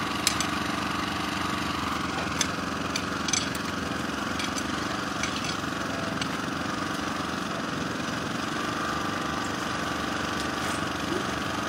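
Small petrol engine running steadily, with a few light clicks in the first few seconds.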